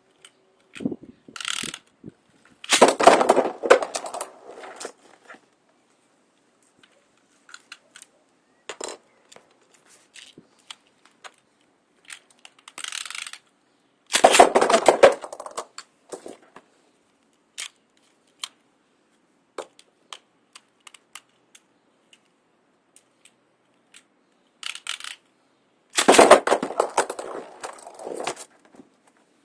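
Metal Fight Beyblade spinning tops launched three times, each with a short zip of the ripcord launcher followed by a second or two of dense clattering as the metal-wheeled tops land and clash in the stadium. There are scattered single clicks between rounds.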